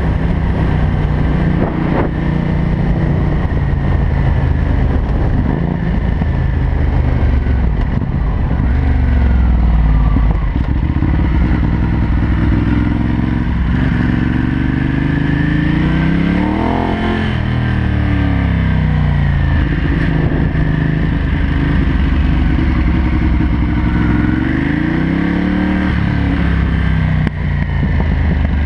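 Ducati Hypermotard SP 821's L-twin engine breathing through a Termignoni full race exhaust while ridden. The engine pitch drops and climbs again several times as the rider rolls off and gets back on the throttle, with one deep dip in the middle.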